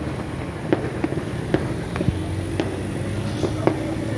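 Fireworks going off in irregular, separate bangs, about two a second, over a steady background hum.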